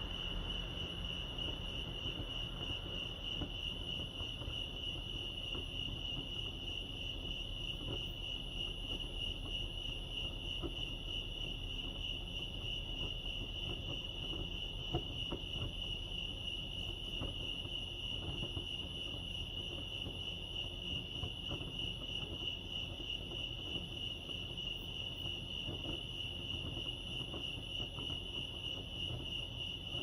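Crickets chirping in a steady, unbroken high-pitched trill.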